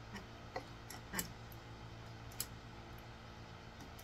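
A handful of light metallic clicks from a small screwdriver working the set screw of a keeper onto a calliope striker rod, the loudest about a second in, over a steady low hum.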